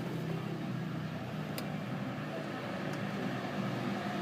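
Car engine running steadily at a low level, with a single faint click about one and a half seconds in.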